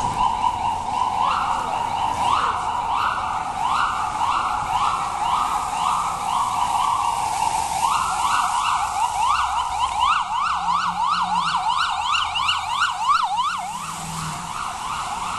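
Electronic siren sounding: a steady tone with repeated rising sweeps that speed up in the second half, settling back to a steady tone near the end.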